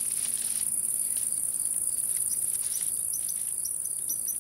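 Night insects, crickets, trilling as a steady high-pitched drone, with faint short chirps creeping in near the end.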